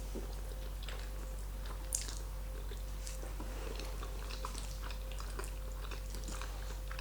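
Close-miked chewing of carbonara pasta: soft wet mouth clicks and smacks, one a little sharper about two seconds in, over a steady low hum.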